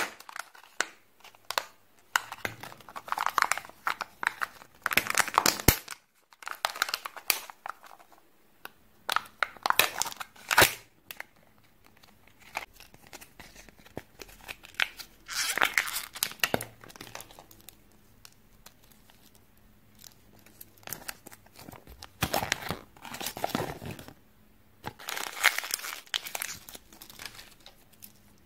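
Crinkling and tearing as the foil seal is peeled off a Kinder Joy egg's plastic half and its wrappings are pulled open. The sound comes in separate bursts with pauses between them, with a few sharp plastic clicks.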